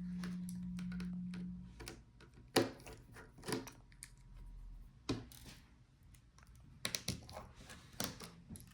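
A small electric screwdriver's motor running steadily as the laptop's screen-rail screws are backed out, stopping a little under two seconds in. Then a handful of light clicks and taps as small screws and parts are handled and set down.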